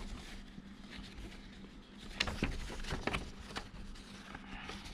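Folded paper instruction leaflet rustling and crackling as it is handled and bent open, with a cluster of short crackles about two to three and a half seconds in.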